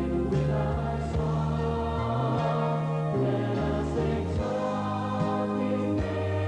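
Music with a choir singing long held notes over a stepping bass line.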